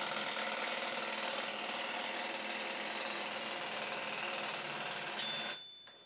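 Royal Epoch typewriter's automatic repeat key firing off characters in a rapid, continuous rattle, which ends with a single ring of the carriage bell about five seconds in.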